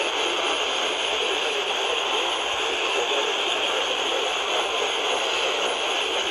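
Steady hiss of AM static from a Sony pocket AM/FM radio's small speaker, tuned to a weak, distant AM station.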